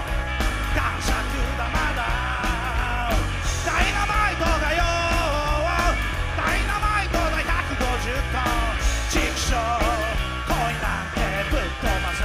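Live rock band of electric guitar, electric bass and drum kit playing a fast rock-and-roll number, with a pitched lead line that bends and wavers over the steady drums.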